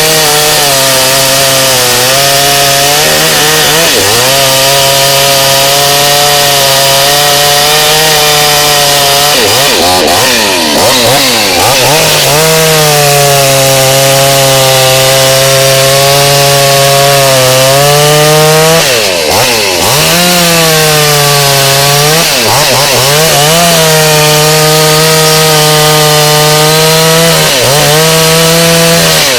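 58 cc Kraft Hart two-stroke chainsaw running at high revs, cutting wood. Its pitch dips briefly and recovers about six times.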